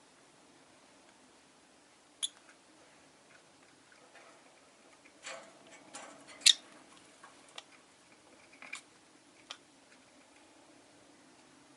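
Rosy-faced lovebirds giving scattered short, sharp squeaks and clicks, about eight in all, the loudest about six and a half seconds in, over a faint steady hum.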